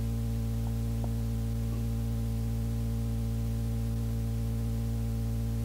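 Steady electrical hum with several overtones and a light hiss underneath, the background of an old reel-to-reel tape recording in a gap between spoken segments; one faint tick about a second in.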